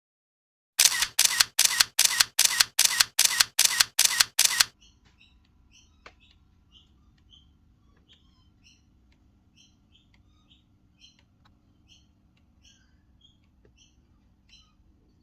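A rapid run of about ten camera shutter clicks, a little under three a second, stopping about five seconds in. Faint bird chirps follow.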